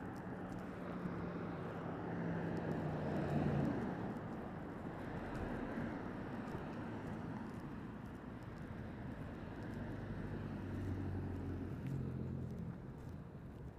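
Husqvarna Svartpilen 401's single-cylinder engine running under way, with steady wind and road noise. The engine note is loudest about three and a half seconds in, sinks under the wind noise, and comes through again about eleven seconds in.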